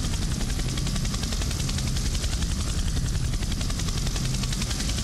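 Helicopter noise heard from inside the cabin: a steady drone of engine and rotor with a fast, even rotor beat.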